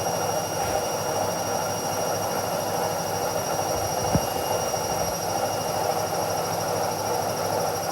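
Indesit washing machine running with a steady rushing noise and thin high whine. A single low knock sounds about four seconds in.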